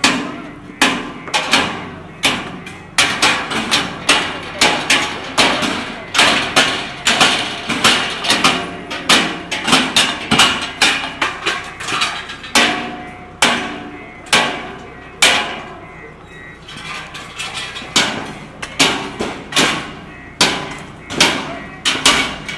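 Demolition hammering: a long run of sharp hammer blows, about one to two a second and unevenly spaced, each with a short ring, easing off briefly about two-thirds of the way through.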